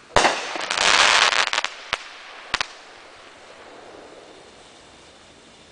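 Aerial firework bursting: a sharp bang, then about a second of dense crackling, then two more separate pops before it fades out.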